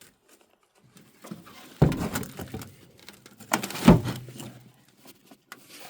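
A potato bucket being handled and emptied: two heavy thumps about two seconds apart, with rustling and scraping of soil between and after them.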